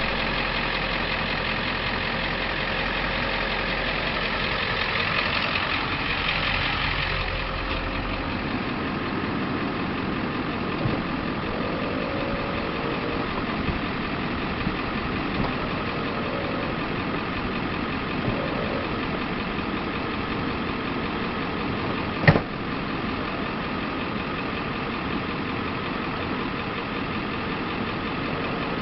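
Ford F550 truck's engine idling steadily. An extra hum rides on top for the first eight seconds and then stops, and there is a single sharp click about three-quarters of the way through.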